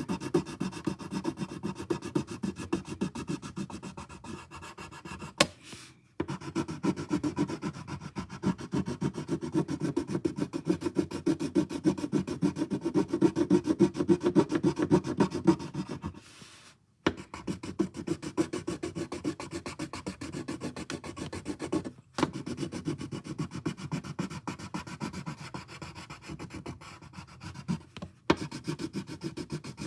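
A colouring tool rubbing on paper, colouring in with rapid back-and-forth strokes, stopping briefly a few times.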